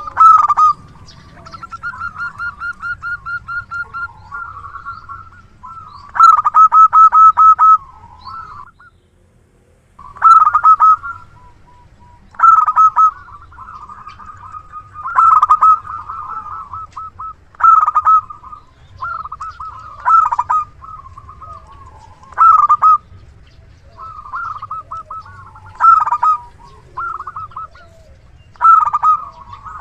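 Zebra dove (perkutut) cooing over and over, each phrase a quick stuttering roll of notes, repeated about every two seconds with one brief pause partway through.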